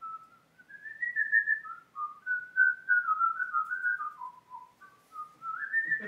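A man whistling a wandering tune, one clear note at a time, stepping and sliding up and down, with a brief lull about five seconds in.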